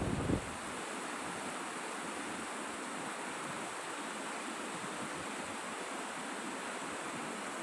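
Steady, even rush of flowing water. A low rumble of wind on the microphone stops about half a second in.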